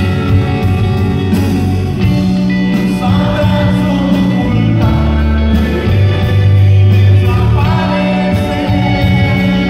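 Live rock band playing through a PA: electric guitar, bass guitar and drum kit, with a singer on the microphone.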